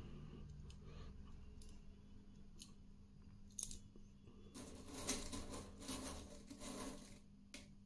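Faint handling of a steel-BB air-pistol magazine and loose steel BBs: a few light clicks, then a stretch of rustling and clicking about five to seven seconds in as fingers pick through the loose BBs, and one more click near the end.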